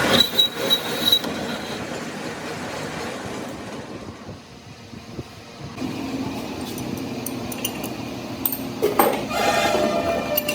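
Metalworking noise in a heavy-machinery repair shop: a steady mechanical rumble with a thin high squeal for the first second or two, easing off midway, then picking up again with sharp metallic clinks near the end.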